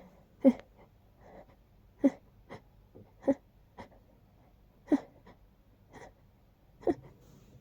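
A person's sneeze building up: a series of short, sharp, hitching in-breaths, five louder catches a second or more apart with fainter ones between.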